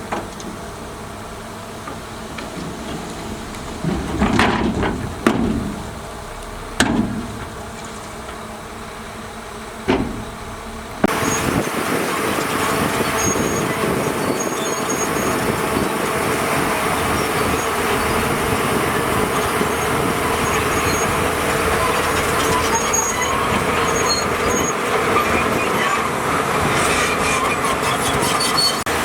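Heavy earth-moving machinery running, with a few short, loud squeals and clanks in the first ten seconds. About eleven seconds in, the sound cuts suddenly to louder, steady engine noise.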